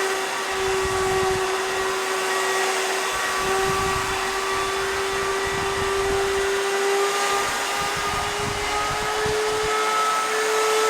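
Dirt Devil Royal Platinum Force upright vacuum running with a steady motor whine over airflow hiss. The pitch creeps up slightly about seven seconds in. Its bearings sound a little funky.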